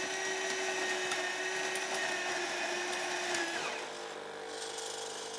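Krups fully automatic espresso machine's built-in grinder motor running steadily with a whine, then winding down about three and a half seconds in. A quieter, lower steady hum from the machine follows as it moves to the next stage.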